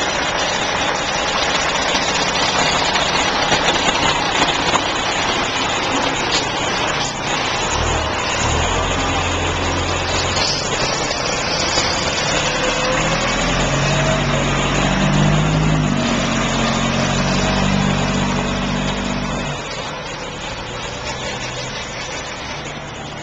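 Steady road traffic noise with a motor vehicle's engine running close by. A deep, heavy engine drone starts about a third of the way in, holds for about ten seconds, then falls away.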